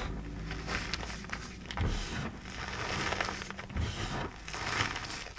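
Hands pressing and squeezing into a deep bed of loose powdered gym chalk: an irregular crunching and crackling that swells a few times.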